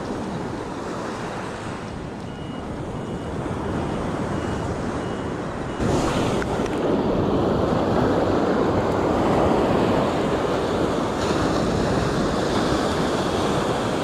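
Surf breaking and washing up a sandy beach, with wind on the microphone; it gets louder about six seconds in.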